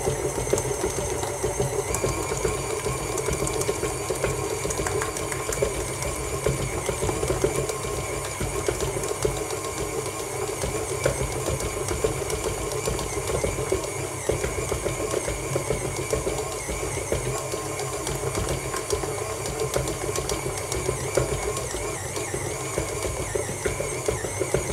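KitchenAid Artisan stand mixer running steadily as its dough hook kneads pizza dough in the steel bowl. The motor's pitch steps up about two seconds in as the mixer is switched to a faster speed.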